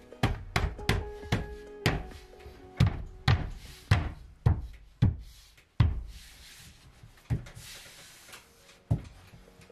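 Hands slapping and knocking a plasterboard panel as it is pushed and tapped into place against the ceiling framing: about a dozen sharp, irregular thumps, thinning out after about six seconds. Soft background music plays underneath.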